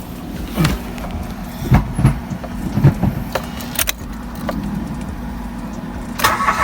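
Mitsubishi Mirage G4's petrol engine being started and running, with several short thumps in the first few seconds and a rattle of keys near the end. This is a hard-starting engine, which the owner puts down to air trapped in the fuel line, being started with the gas cap off.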